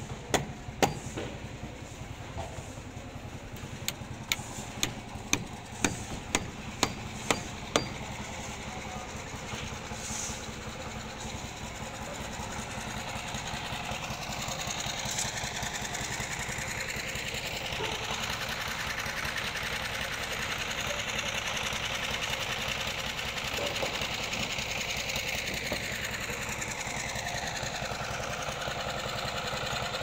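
A run of sharp hammer blows, about two a second, stopping about eight seconds in, followed by a portable concrete mixer's engine running steadily.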